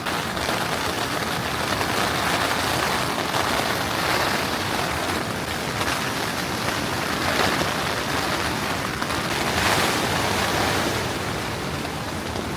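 Heavy rain falling on a canvas tent in a thunderstorm, a dense steady hiss that swells a few times with the wind.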